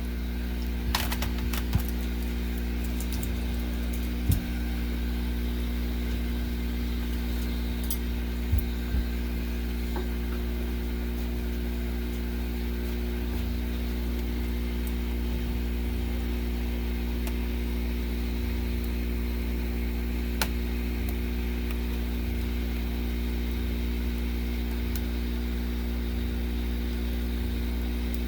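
A steady low electrical hum with several evenly spaced tones in it, and a few light clicks scattered through it.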